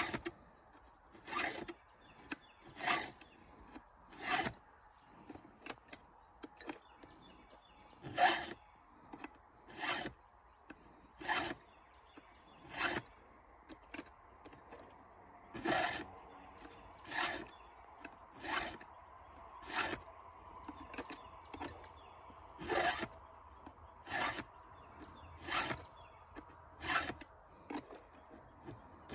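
A hand file rasping across the cutters of a saw chain on a 24-inch bar, one short push stroke about every second and a half, with brief pauses between teeth.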